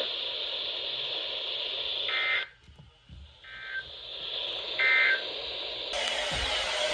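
Three short bursts of EAS/SAME digital data tones over weather radio hiss: the End of Message code sent three times, marking the close of the warning broadcast. Near the end the hiss jumps louder.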